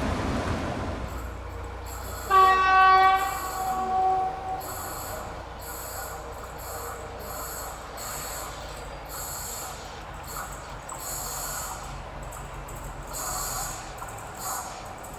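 An SU45 diesel locomotive's horn sounds about two seconds in, one blast of roughly two seconds that is loudest at its start. Under it the low rumble of the passing train fades away.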